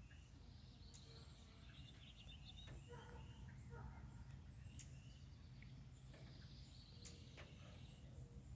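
Faint chirping and warbling of several songbirds, in short calls scattered throughout, over a steady low background hum.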